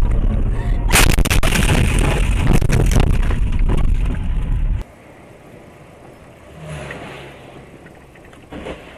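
Loud road rumble, then from about a second in a sharp crash followed by about three seconds of crunching and scraping, typical of a car collision recorded by a dashcam. The sound drops away suddenly about halfway through to quieter road noise.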